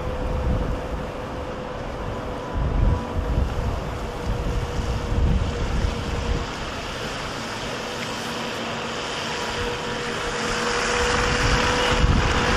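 Soviet ZiU-9 trolleybus approaching and passing close, its running noise and tyre swish on slushy snow growing louder toward the end. A faint steady whine runs underneath, and wind gusts buffet the microphone.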